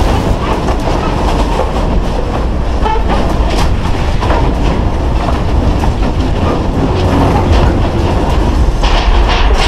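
A house shaking in an earthquake: a loud, deep, continuous rumble with scattered rattling and clattering.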